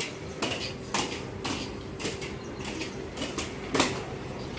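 Roller skates clacking and knocking on a hard floor as a beginner steps and glides, in irregular sharp knocks about every half second.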